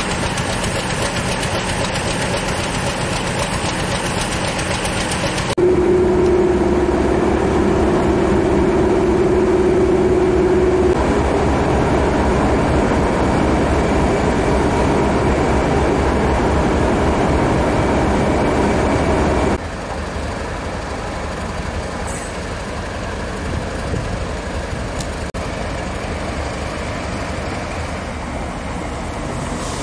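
Diesel trains running at a station platform, heard in three cuts. First a BR Class 50 diesel locomotive with its coaches, then a Class 73 electro-diesel locomotive with a steady hum over its first few seconds, then, quieter, a Class 171 Turbostar diesel multiple unit.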